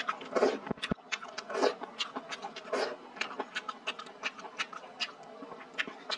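Close-miked eating sounds: wet chewing and slurping with many small, quick mouth clicks as a sauce-soaked fried egg is bitten and chewed.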